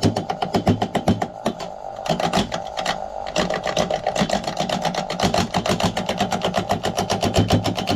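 Wood lathe turning an out-of-round bowl blank while a turning gouge cuts into it, the tool striking the blank's high spots in a fast, even run of knocks over the lathe's steady whine. The cut is tearing out the wood grain.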